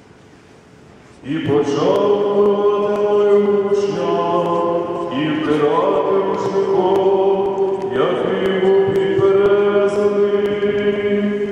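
Byzantine-rite liturgical chant: voices singing long held notes phrase by phrase, starting about a second in.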